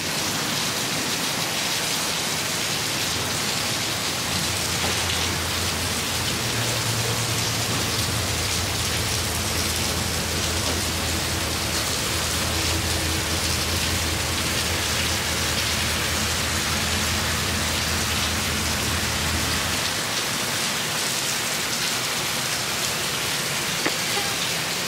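Heavy rain falling steadily, hissing on hard surfaces, with a faint low hum underneath through the middle.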